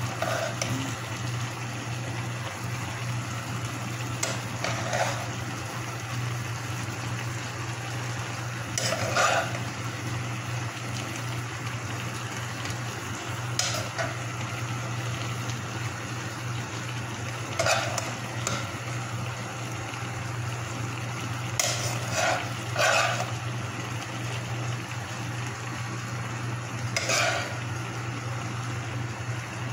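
Rice and vegetables sizzling and cooking in a pan on a gas burner, with a steady low hum underneath. Short scrapes and knocks of a utensil against the pan come every few seconds as the rice is spread and pressed down.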